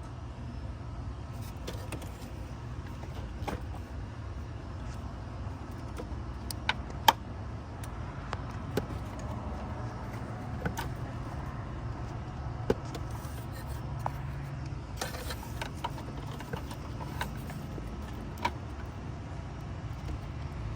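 Steady low rumble of an idling car engine, with scattered sharp clicks and metallic ticks over it.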